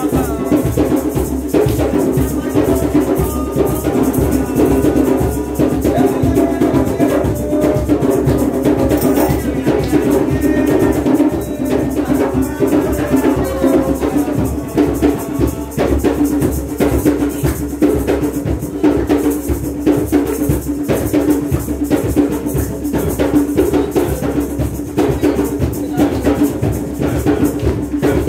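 Loud, lively percussion-led music: drums and shakers keep a quick, steady rhythm, with a wavering melody line of voices over it.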